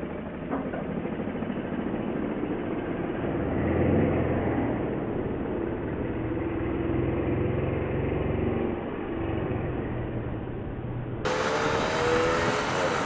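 Motorcycle engine running under way in traffic, with road and wind noise; the engine note climbs about three to four seconds in and then holds steady. The sound is muffled until near the end, when it turns brighter.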